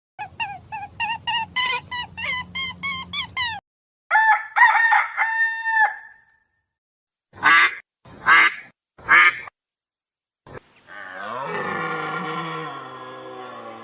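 A sequence of separate farm-bird calls. First comes a run of quick, evenly repeated calls, about three a second, and then a drawn-out crowing call. After that come three short loud calls about a second apart, and near the end a long call that falls in pitch.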